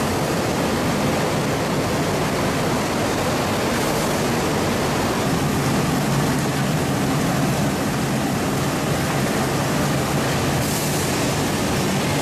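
Poultry processing machinery running with a steady rushing of water, and a low machine hum underneath. The hiss brightens briefly near the end.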